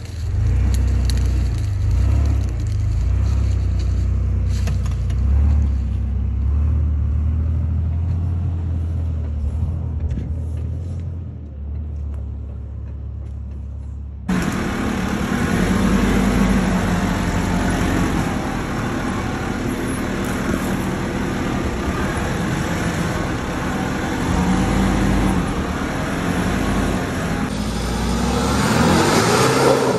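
Four-wheel-drive engines working at low speed on a rough dirt track. First a Mitsubishi Pajero passes close with a deep steady drone. After a sudden change about 14 seconds in, an engine note rises and falls as the vehicle climbs, and near the end an engine revs up.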